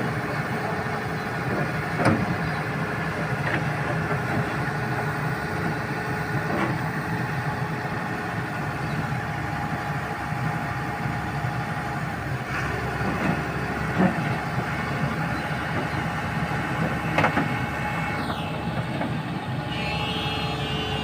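Heavy vehicle engine running steadily, with a few sharp knocks standing out now and then.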